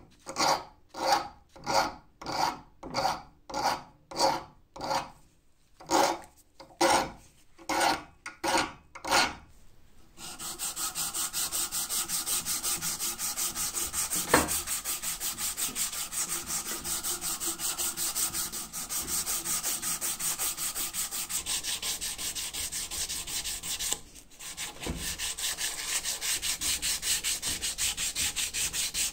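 Round file rasping back and forth through a hole in a rusty metal scythe fitting held in a vise, about two strokes a second with a short pause midway. About ten seconds in this gives way to fast, continuous rubbing as a strip of abrasive cloth is pulled back and forth around the scythe's wooden handle, sanding it, with a single knock a few seconds after and a brief break near the end.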